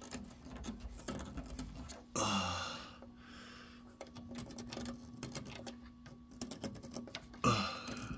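Light, irregular clicks and taps from hand work while marking out the vise's bolt-hole positions on the workbench, with a louder brief sound about two seconds in and a faint steady hum behind.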